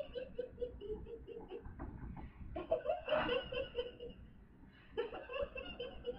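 A woman laughing quietly in short runs of rapid pulses, in several bouts.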